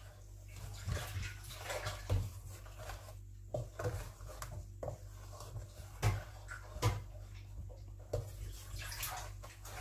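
Wooden spoon stirring thick strawberry jam in a stainless steel pot, with irregular knocks and clinks against the pot over a steady low hum.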